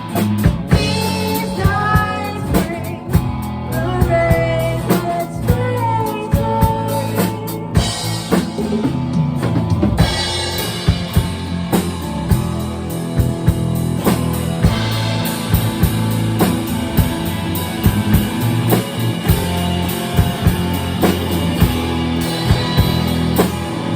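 Pop-rock song with a full drum kit keeping a steady beat under bass and other instruments; a sung melody line bends in pitch through the first several seconds, then the band carries on.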